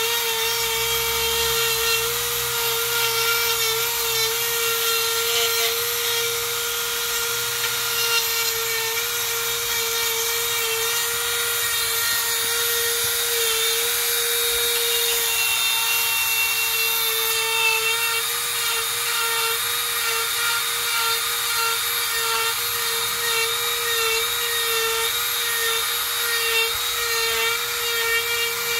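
Dremel rotary tool running through its flex-shaft attachment, a small burr grinding into wood with a steady high-pitched whine that wavers slightly as the burr is pressed and moved in the carving.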